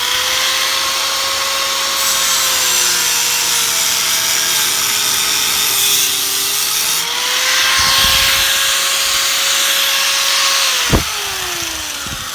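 Handheld electric power tool cutting through the seat's metal frame: a steady motor whine over a harsh cutting hiss, the pitch sagging as it bites and recovering. About eleven seconds in it is switched off with a click and winds down, its pitch falling.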